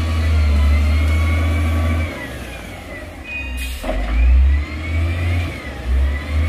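Diesel engine of heavy earthmoving machinery working under load with a deep rumble; the revs drop about two seconds in and pick up again from about four seconds. A brief hiss a little past halfway.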